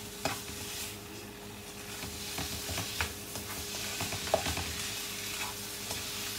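Chicken pieces with onion and garlic sizzling in a nonstick frying pan while being stir-fried with a plastic spatula, with scattered scrapes and knocks of the spatula against the pan. The loudest knock comes a little over four seconds in.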